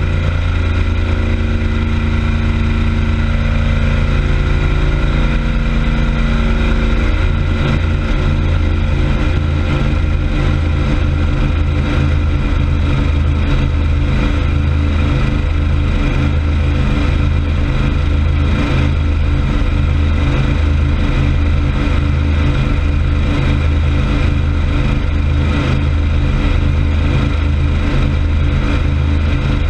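Motorboat engine running steadily under way over the rush of churning prop wash and spray behind the boat, running smoothly. About seven seconds in, the low engine note settles into a slow, regular throb.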